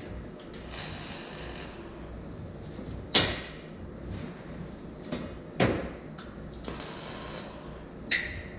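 Two short bursts of arc-welding hiss as tack welds are laid on a steel frame, about a second in and again near the end. Three sharp metal clanks fall between and after them; these are the loudest sounds, and the last one rings briefly.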